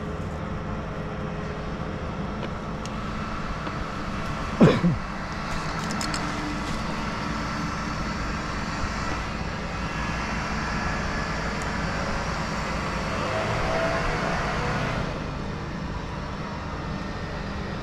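Stick-boom crane's engine running steadily, building a little louder about three-quarters through and then settling back. A brief shout about five seconds in.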